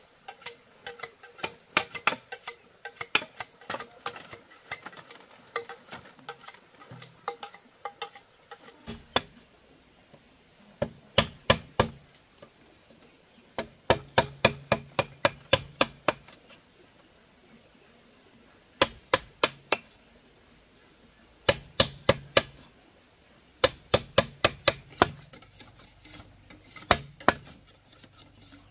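Wooden mallet striking a chisel into a green bamboo tube to cut a hole: sharp knocks, about four or five a second, in bursts with short pauses between them. The first part is a longer run of lighter, closer-spaced taps.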